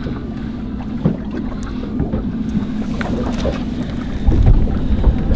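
A boat on open water: a steady low engine hum with a few faint small ticks. Wind buffets the microphone about four seconds in.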